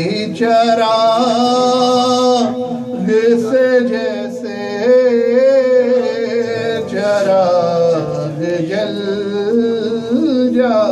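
A man singing a devotional song to a harmonium, his melody winding and ornamented over the instrument's steady held notes.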